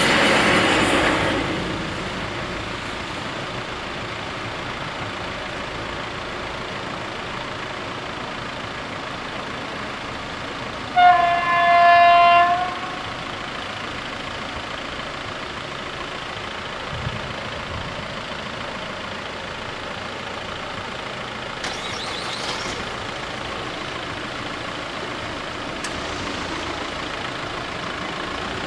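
Regional train running over a level crossing, its noise fading away within the first two seconds. About eleven seconds in, a single loud horn blast of under two seconds on one steady pitch, briefly broken near its start, from the departing train.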